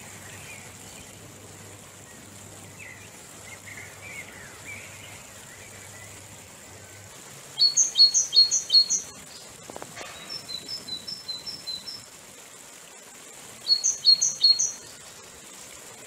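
Steady rush of a mountain river over rapids, with songbirds calling over it. Faint twittering comes early on. About 8 seconds in, a bird gives a loud phrase of four quick bright notes, followed by a softer run of repeated notes. Near the end there is another loud burst of three notes.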